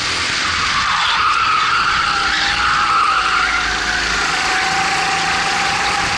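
Racing kart's single-cylinder four-stroke Honda GX270 engine running hard at high revs, heard onboard under a loud rush of wind noise on the microphone; the revs dip briefly about a second in, then pick up again.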